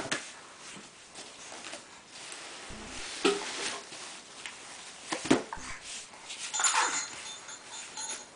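A baby's short vocal sounds, little grunts and squeals, come a few times over the rustle of tissues being pulled from a tissue box, with a longer one near the end.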